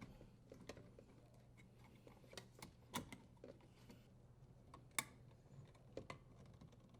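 Faint, scattered clicks and taps, the two loudest about three and five seconds in: a dishwasher's metal terminal box cover being realigned and its screw threaded in.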